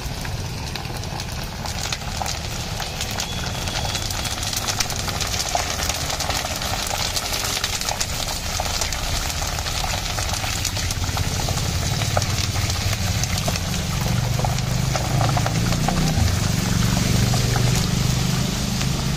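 Green chillies deep-frying in hot oil in a large iron kadai: a steady, dense sizzle and crackle. A low engine-like hum grows louder in the last several seconds.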